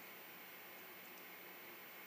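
Near silence: a steady faint hiss of room tone, with a couple of very faint small ticks about halfway through.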